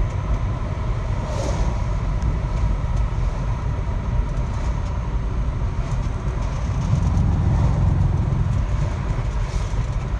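Vehicle interior noise while driving: a steady low road-and-drivetrain rumble with a thin, constant high whine running through it, the abnormal noise the vehicle is being recorded for.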